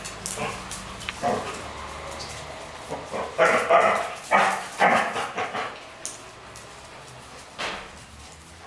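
Dogs barking during rough play: a cluster of loud barks in the middle, between about three and five and a half seconds in, with a few single barks before it and one more near the end.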